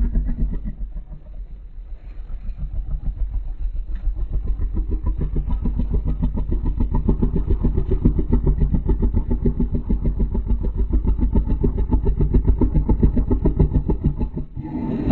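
Monster sound effect: a low, rapidly pulsing rumble. It drops back after a loud start, builds up again about two seconds in, holds steady and then cuts off abruptly near the end.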